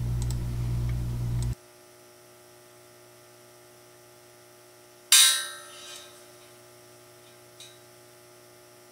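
A steady electrical hum that cuts off suddenly after about a second and a half, then a single sharp metallic clang with a ringing decay about five seconds in, as a small metal part strikes the steel hornplate; a faint click follows.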